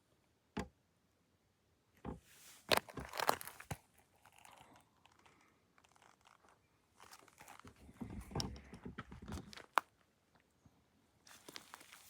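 Loose rock and gravel crunching and clicking in irregular bursts, with a single sharp click just before ten seconds in.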